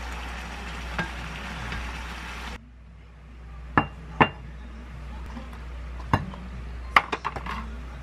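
A pan of curry simmering on a gas stove with a steady hiss while a spatula stirs it, with a light tap about a second in. It cuts off suddenly, and a ceramic bowl is set down on a countertop with two sharp clinks, followed by more clinks and taps near the end.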